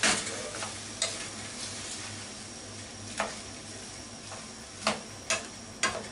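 Shirataki noodles and sliced onion sizzling in a non-stick frying pan over a gas flame. A wooden spatula stirs them, and its edge knocks and scrapes against the pan several times.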